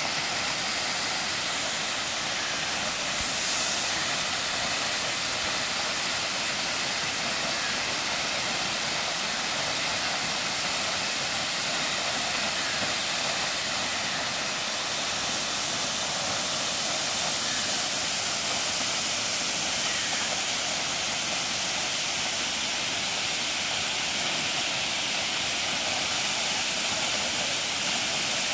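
Waterfall: water falling down a steep rock face and splashing into the pool below, a steady, even hiss.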